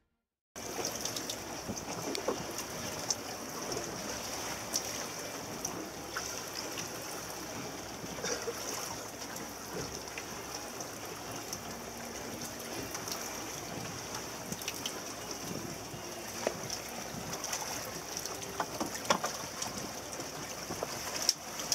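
Water rushing and splashing along the hull of a small boat under way, with a steady high hiss and a few sharp knocks. It starts suddenly about half a second in.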